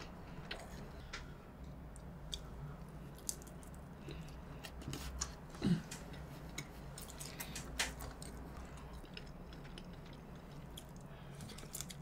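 Close-miked chewing of nigiri sushi: soft wet mouth sounds and small sharp clicks throughout, with a brief closed-mouth "mm" hum about six seconds in.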